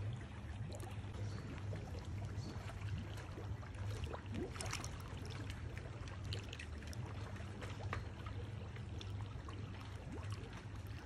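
Water trickling in a koi pond, with scattered short ticks and a steady low hum underneath.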